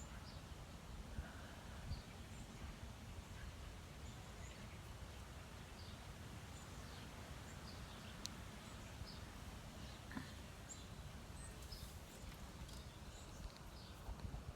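Faint outdoor background noise with a low steady rumble and scattered short, high bird chirps.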